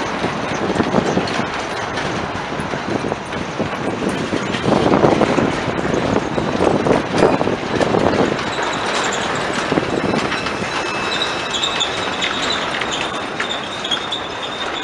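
A slow, heavy loaded grain train's freight cars rolling past on their steel wheels: a steady rumble with uneven clacks and bumps, and a faint high squeal in the second half as the last cars go by.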